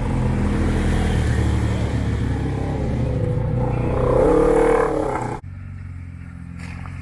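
Jeep engine running as it crawls a muddy trail, rising in a rev about four seconds in, then the sound cuts abruptly to a quieter, steadier engine hum.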